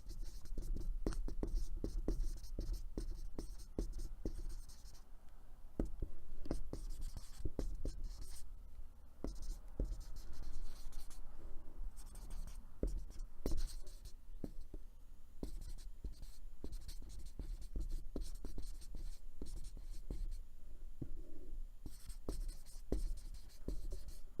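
Marker writing on a whiteboard: irregular strokes with high squeaks while the tip drags, broken up by taps as the marker touches down and lifts off.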